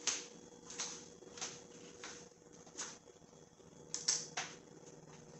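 A handful of light, sharp clicks and knocks, spaced irregularly from under a second to over a second apart, the loudest at the start and a quick cluster about four seconds in, over a faint steady hum.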